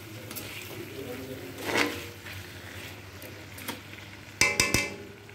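Spoon stirring and scraping chicken pieces in a metal wok, ending in several quick clanks against the pan about four and a half seconds in.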